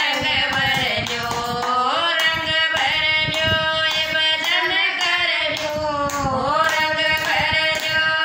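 Two women singing a Haryanvi bhajan together, clapping their hands in time.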